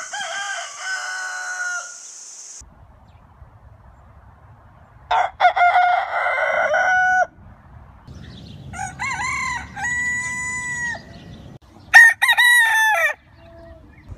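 Roosters crowing: four separate cock-a-doodle-doos one after another, each a second or two long, the shortest and loudest near the end. A hiss runs under the first crow.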